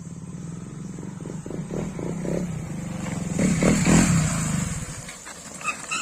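Motorcycle engine running, growing louder to a peak about four seconds in, then fading away as it passes or moves off.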